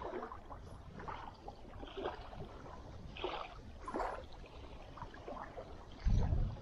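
Small waves lapping and washing onto a gravel lake shore in irregular splashes about a second apart. Near the end a gust of wind buffets the microphone with a loud low rumble.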